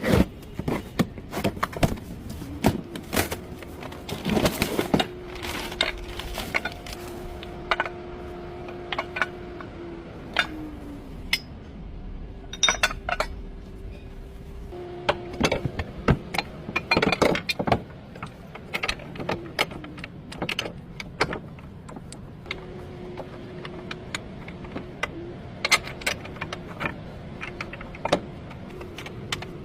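Repeated metallic clinks, clanks and knocks of hand tools and suspension parts being worked on a car's front lower arm, with an intermittent steady hum that slides down in pitch once, about ten seconds in.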